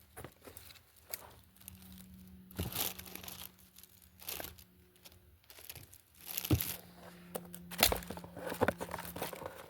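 Crinkling and rustling of packaging as the pieces of a wood-carving kit are handled and unwrapped, with irregular sharp clicks and crackles and a few louder rustles.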